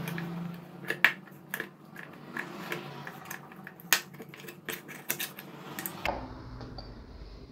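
Irregular sharp clicks and taps, a dozen or so spread over about six seconds, of small tools and objects being handled on a workbench.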